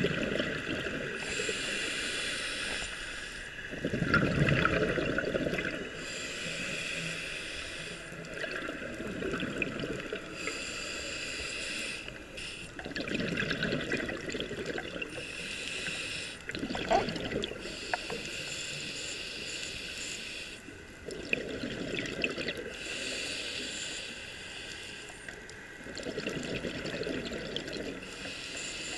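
Scuba diver breathing through a regulator, heard underwater: a hissing inhale, then a bubbling rush on the exhale, repeated in about six slow, even breaths.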